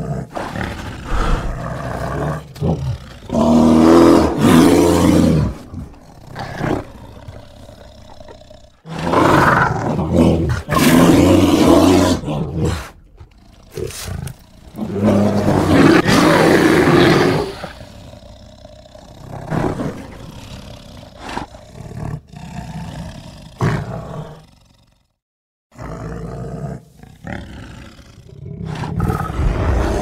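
Black bear growling and roaring: three loud, drawn-out roars a few seconds apart, with quieter grunts and growls between them. There is a brief break near the end, then another growl.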